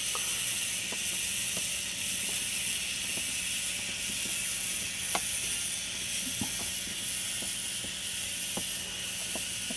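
Small tracked robot rover's gear motors and treads running steadily, with a constant hiss and low hum and scattered irregular light clicks from its drive and sonar-scanning mechanism.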